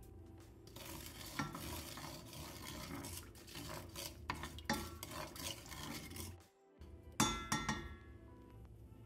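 Wooden spoon stirring oil, vinegar, salt, sugar and peppercorns in a stainless steel pot, scraping and ticking over the textured pot bottom. The sound cuts out for a moment, then there is a brief loud ringing clatter about seven seconds in.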